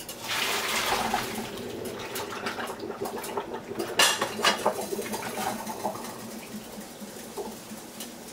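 A rush of water for a couple of seconds, then a nonstick saucepan set down on an electric coil stove burner with a sharp clank about four seconds in and a few lighter knocks after it.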